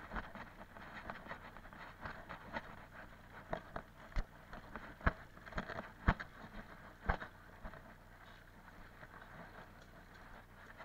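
Dirt bike rolling slowly with its engine silent, tyres crunching over gravel and grass and chassis rattling, with several sharp knocks near the middle.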